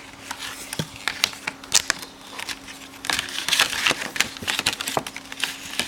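Retail packaging of a silicone phone-style case being handled and opened: a run of sharp clicks and crackles, with a longer stretch of crinkling about three seconds in.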